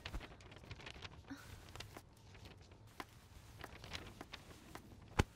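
Faint footsteps on a hard floor, a run of light irregular taps, with one sharper knock near the end.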